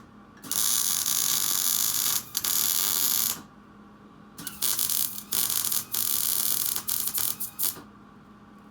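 Power wrench run in several short bursts, driving the bolts of a Jeep XJ transmission crossmember tight, with a pause of about a second between the first bursts and the later, choppier ones.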